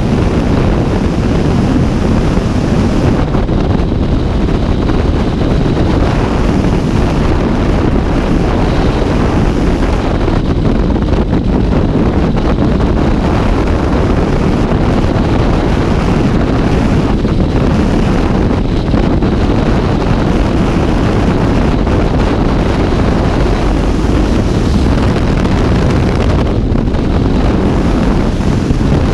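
Loud, steady wind noise from freefall airflow buffeting a skydiver's body-worn camera microphone, heaviest in the low end.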